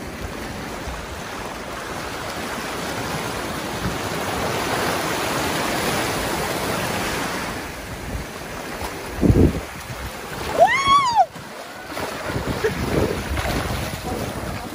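Surf washing over shore rocks, with wind buffeting the microphone. About nine seconds in comes a short low thud, and just after it a brief pitched cry that rises and then falls.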